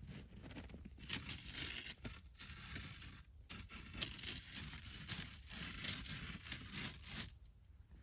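Irregular bursts of rustling and crunching, one after another, like dry material being handled or crushed.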